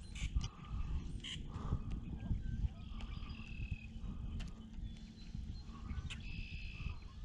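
Frogs calling in a chorus, short trills of about half a second repeating every second or two, over a steady low rumble of wind on the microphone.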